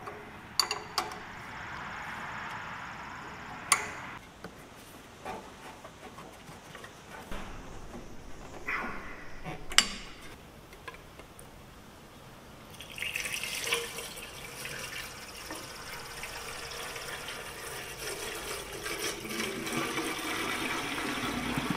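A few sharp metal clinks of hand tools on the thermostat housing bolts of a John Deere 2630 tractor. About two-thirds of the way in, liquid begins pouring from a jug into the radiator filler neck, a steady splashing fill as the cooling system is refilled.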